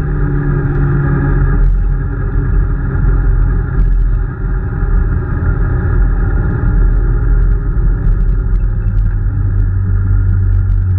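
Peugeot 205 rally car's engine running hard under way, heard from inside the cabin together with road and tyre noise. The engine note shifts a couple of seconds in and dips briefly about four seconds in, as for a lift or gear change.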